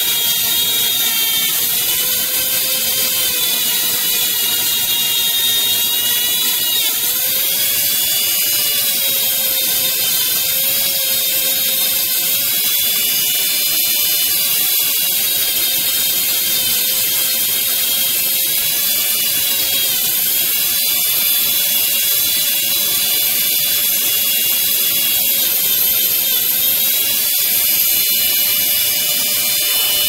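Handheld Dremel rotary tool running at high speed with a small abrasive wheel, grinding a steel bobby pin into a lock pick. Its steady whine sags in pitch briefly every several seconds as the pin is pressed against the wheel.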